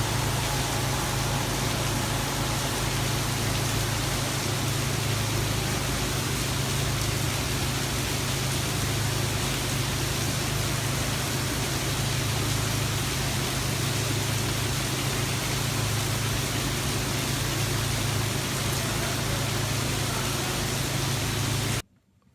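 Steady, even hiss with a low hum underneath, holding at one level and cutting off suddenly near the end.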